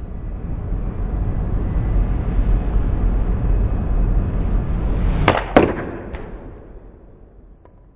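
An iron club strikes a golf ball off a hitting mat, and about a third of a second later the ball smacks into the wall of a fiberglass equipment shelter with a louder, briefly ringing crack. A steady low rumble runs underneath and fades away after the strike.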